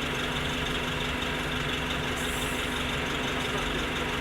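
Orion V transit bus engine running steadily at a constant speed, its note unchanging.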